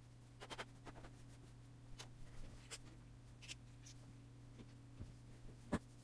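Faint handling noises from work on an opened laptop: scattered light clicks and rustles, the sharpest one near the end, over a steady low hum.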